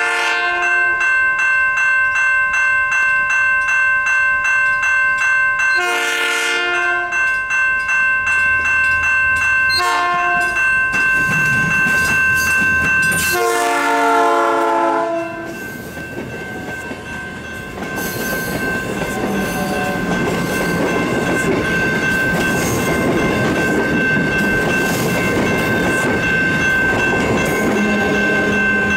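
South Shore Line electric multiple-unit train sounding its horn in four blasts, the third short, the last long and dropping in pitch as the cab passes. A grade-crossing bell rings steadily. After the horn, the cars roll past with steady wheel-on-rail noise.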